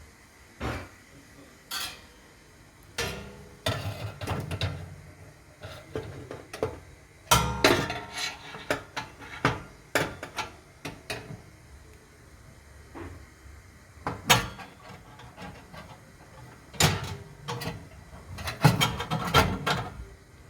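Metal parts of an oven shashlik maker clinking and knocking as it is assembled and fitted into the oven: irregular clatters and clicks in bursts, busiest in the middle and near the end.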